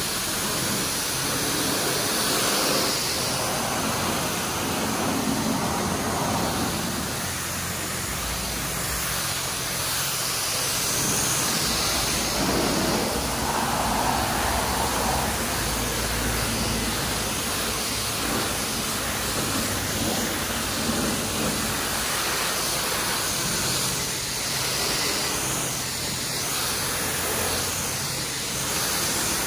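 High-pressure car wash wand spraying water onto a car's bodywork: a steady hiss of spray that shifts in tone now and then as the jet moves over the panels.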